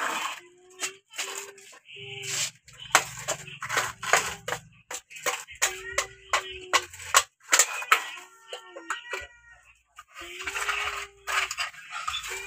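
Plastic toy excavator scraping into sand and tipping it into a plastic toy dump truck: many sharp clicks and rattles of plastic and grit, with short patches of pouring sand. A steady low tone comes and goes behind.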